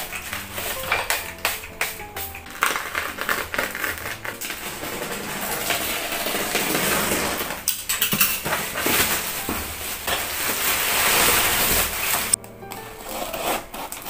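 Plastic bubble wrap being cut and torn off a parcel: sharp snips and clicks at first, then a long stretch of crinkling and rustling plastic that grows louder before stopping abruptly. A short run of fainter scratching at packing tape on a cardboard box follows.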